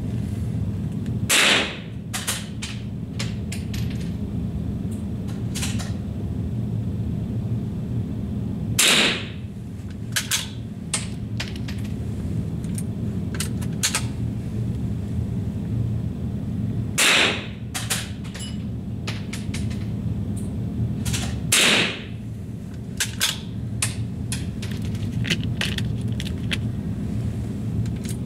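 Four single rifle shots several seconds apart, each followed by a few quieter sharp clicks, over a steady low hum.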